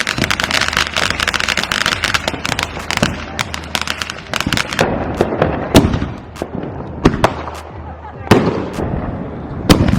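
Consumer fireworks going off: a dense run of rapid crackling pops for about the first four seconds, then separate sharp bangs every second or so.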